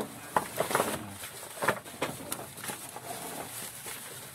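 Leafy goat feed rustling and crackling as it is handled and pulled at by feeding goats, in short, irregular scratchy bursts. There is a faint animal call about three seconds in.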